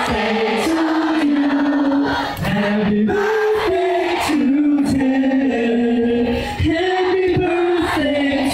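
Boy group singing live into handheld microphones over a backing track, with long held notes in several voices and a crowd audible behind.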